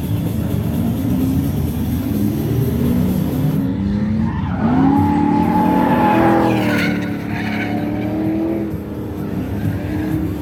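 Drift cars' engines revving up and down on and off the throttle, with tyres squealing as the cars slide; the loudest, longest squeal comes in the middle.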